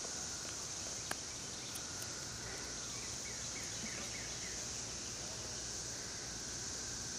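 Woodland ambience: a steady high-pitched insect drone, with a bird calling a quick run of short falling notes a few seconds in.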